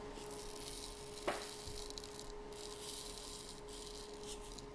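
Steel BBs trickling from a Daisy BB container into a small wooden clock counterweight box, a faint, steady fine rattling hiss with one sharper click about a second in.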